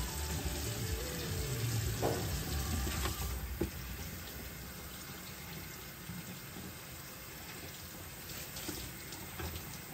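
Kitchen faucet running into a stainless steel sink while a plastic cutting board is rinsed under the stream, with a few light knocks of the board; the water noise drops lower about three and a half seconds in.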